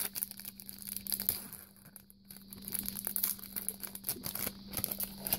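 Foil wrapper of a Pokémon TCG booster pack being torn open and crinkled by hand, an irregular run of crackles with a short pause partway through.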